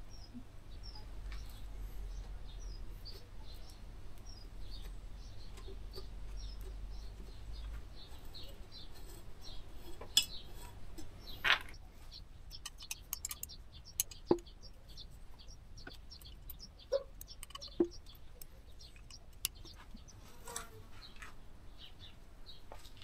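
An electric hub motor being handled and turned by hand after reassembly: scattered light clicks and knocks, with no rubbing. A faint series of short high chirps runs through the first half, and a low hum stops about eight seconds in.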